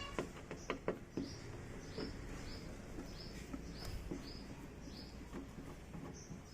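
A small bird chirping over and over, short high chirps about two a second, with a few sharp clicks and knocks in the first second or so.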